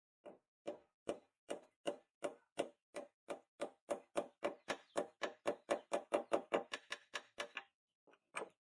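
Small hammer tapping a hex nut down into a wooden block held in a steel bench vise: about two dozen sharp knocks, quickening from roughly two and a half to four a second, then a short pause and two more taps near the end.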